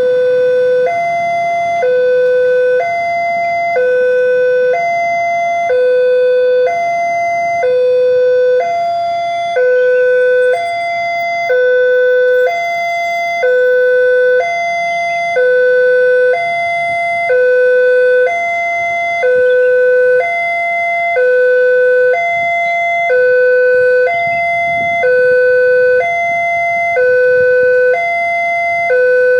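Electronic warning alarm of an Indonesian railway level crossing sounding, alternating evenly between a low and a high tone about once a second: the signal that a train is approaching and the crossing is closed.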